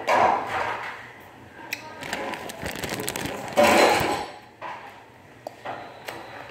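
Clear plastic bag of grapes crinkling and rustling close to the phone's microphone, in several loud bursts with handling knocks, the loudest about four seconds in.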